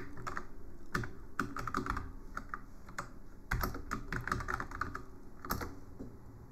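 Typing on a computer keyboard: irregular bursts of quick keystrokes with short pauses between them.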